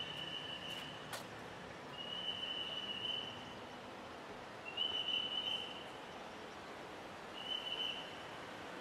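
Street background noise with a high steady tone that sounds four times, each lasting about a second, roughly every two and a half seconds, and a single sharp click just after a second in.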